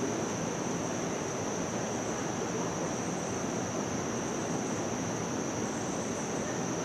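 Steady outdoor background noise, an even hiss with a continuous high-pitched tone above it, without any distinct events.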